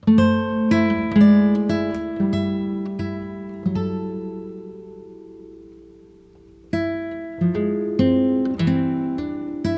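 Acoustic guitar music: plucked notes and strums, with one chord left ringing and fading away for a few seconds in the middle before the picking resumes.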